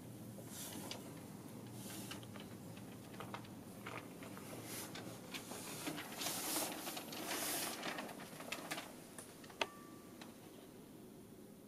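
Stick of charcoal scratching and rubbing across a mural wall in uneven drawing and shading strokes, loudest around the middle. A single sharp click near the end.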